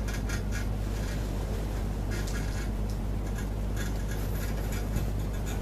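A steady low electrical hum with irregular bursts of crackling static over it.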